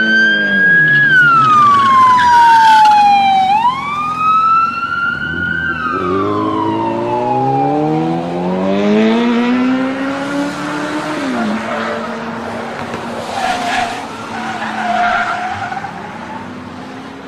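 Police car siren wailing, sliding slowly up and down in pitch through two cycles. A vehicle engine then revs up with steadily rising pitch and drops back about halfway through, with the siren continuing more faintly behind.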